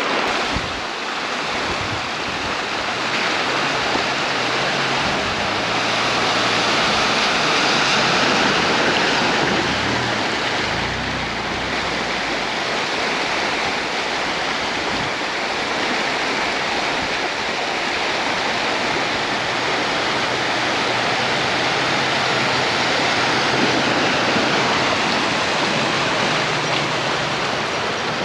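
Shallow river water rushing steadily over rocks and small rapids.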